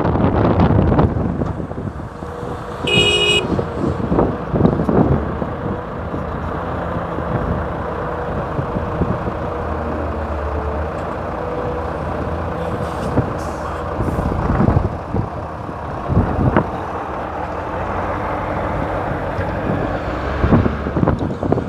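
Hyundai Robex 480LC-9S excavator's diesel engine running steadily under work, with scattered clanks and knocks. A short horn toot sounds about three seconds in.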